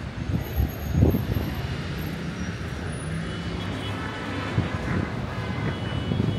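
City street traffic noise: the steady hum of cars and other vehicles running along the road.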